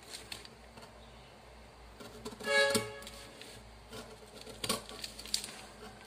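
Scissors cutting through a paper sewing pattern and its taped paper strips, a few separate snips. A short pitched tone of about half a second comes near the middle and is the loudest sound.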